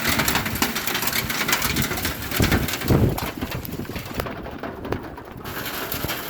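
Hailstorm: countless hailstones clattering down, a dense steady patter of small hard impacts, with a couple of low thuds about two and a half and three seconds in.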